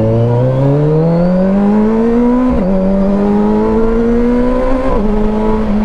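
Kawasaki Versys 1000 SE's inline-four engine accelerating hard in sport mode, its pitch climbing steadily, then dropping sharply with an upshift about two and a half seconds in, climbing again and dropping with a second upshift near the end.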